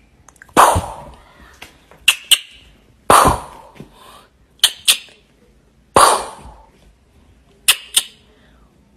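A kitten hissing three times, each a sudden sharp hiss that fades over about a second. Pairs of quick sharp clicks come between the hisses.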